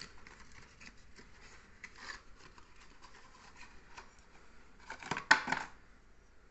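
A cardboard medicine carton being handled and opened and a glass vial slid out of it, with rustling and scraping. A louder clatter a little past five seconds in as the carton is put down on the concrete floor.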